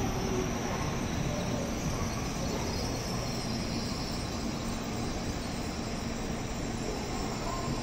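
N700A Shinkansen train running slowly into the station: a steady rolling noise of wheels and traction motors with a faint low hum, easing off slightly toward the end as it slows to a stop.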